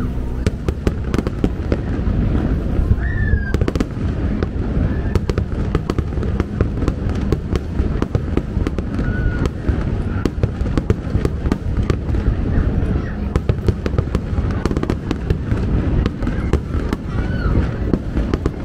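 Aerial fireworks display: a dense, unbroken stream of shell bursts and crackling, many reports overlapping.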